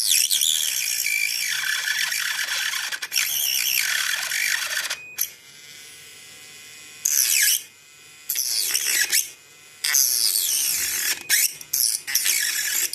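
Mini grinder cutting plastic in several bursts of high grinding whine, with a quieter pause around the middle; the pitch drops each time the cut eases off.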